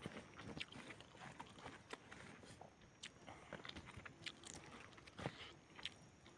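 Quiet chewing and biting of tender cooked chicken eaten by hand, with soft, irregular mouth clicks and crunches.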